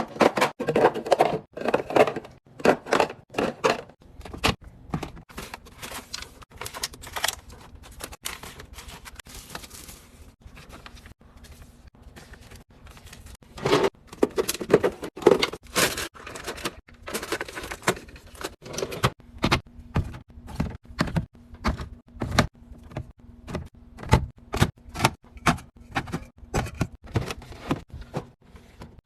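Many quick taps, clicks and knocks of containers and packaged food being handled and set down while a fridge or pantry is restocked, with a busier stretch of clatter around the middle.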